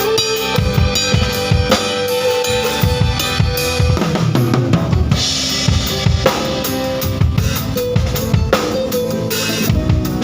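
Drum kit played in a busy groove, kick drum and snare hits, over a backing music track; a cymbal wash rings out about five seconds in.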